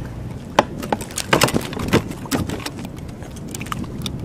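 Irregular sharp clicks and slaps as a small hooked bluefish thrashes on the line and is handled by hand.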